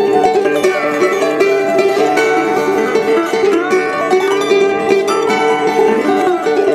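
Background music led by a quick-plucked string instrument playing a melody.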